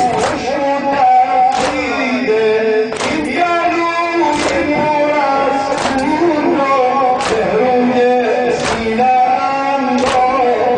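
A male voice sings a Muharram mourning lament. In time with it come unison chest-beats (sina zani), a sharp slap about every second and a half.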